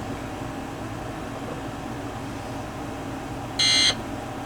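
Steady low hum and hiss, then one short, high electronic alert beep about three and a half seconds in, part of a TV Emergency Alert System alert.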